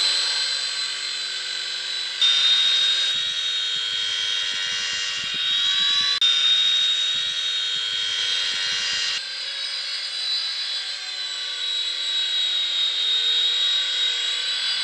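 Small remote-control helicopter's motors whining steadily in flight, the pitch drifting up and down, with some low rattling in the middle. The sound is broken by several abrupt cuts.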